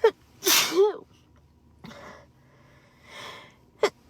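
A woman sneezing once, loudly, at the start: a sharp burst and then a voiced "choo" that slides in pitch. A sharp catch of breath comes near the end as the next sneeze builds.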